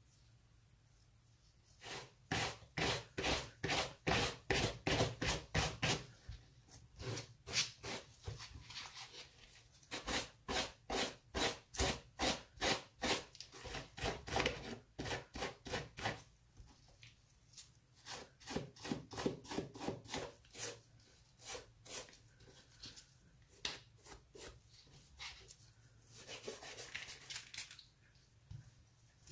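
A small brush stroked rapidly back and forth over a leather dress shoe, about three strokes a second, in bursts with short pauses. This is the dry brushing that clears dust from the upper before cleaning.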